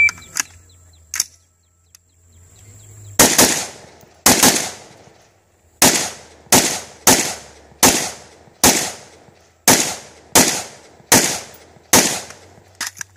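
AR-15 rifle firing about a dozen single shots in a steady string, roughly half a second to a second apart, starting about three seconds in. A couple of small handling clicks come before the first shot.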